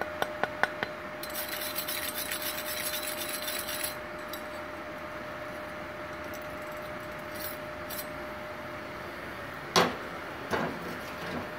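Steel wire brush scraping over a freshly welded aluminium plate: a few clicks, then a couple of seconds of scratchy brushing, followed near the end by a loud metallic clank and a smaller one just after, as metal is set down on a metal bench. A steady thin hum runs underneath.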